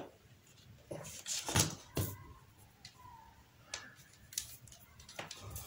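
Scattered light clicks and knocks, about eight at irregular intervals, from hands handling an LED TV mainboard, its 12 V power lead and a pair of multimeter test probes on a workbench.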